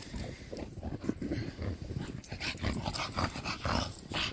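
Two bulldogs at close range making short, noisy breaths and grunts in irregular bursts as they play nose to nose.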